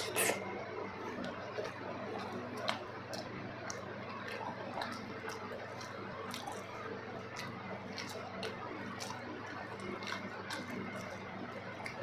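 Close-up chewing and wet mouth sounds of someone eating soft food, with irregular small clicks and smacks throughout.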